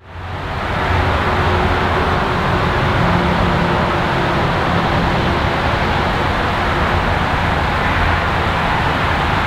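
Diesel locomotive engine running steadily: a low hum under a loud, even rush of noise, fading in over the first second.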